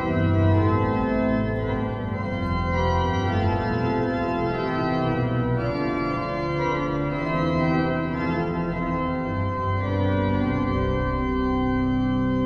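Organ music: sustained chords held and changing every second or so.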